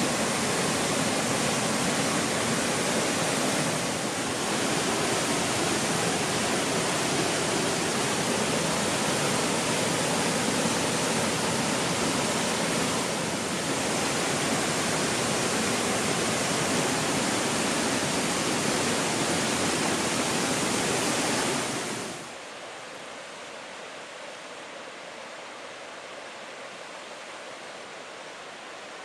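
Waterfall rushing in a steady, loud roar of water. About 22 s in the sound drops suddenly to a quieter rush with less of the deep part.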